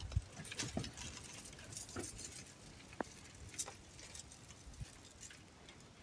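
Faint, scattered clicks and taps, a handful of them sharper, over a low steady hiss.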